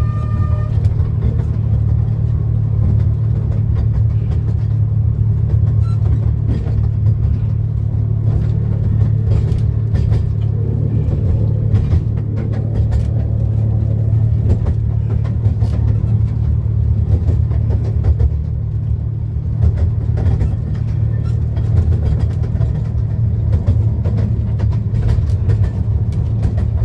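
Steady low rumble of a 15-inch gauge miniature railway carriage running along the track, heard from inside the enclosed carriage, with scattered irregular clicks and knocks.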